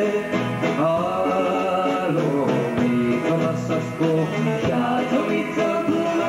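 A man singing a song into a microphone, with live instrumental backing.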